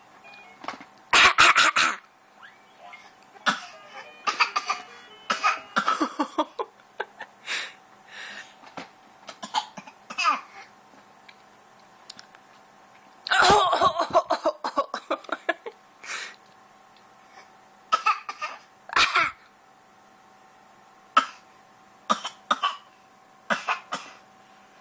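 A baby coughing on purpose in play, short fake coughs repeated every second or two, with a louder, longer run of coughs about halfway through.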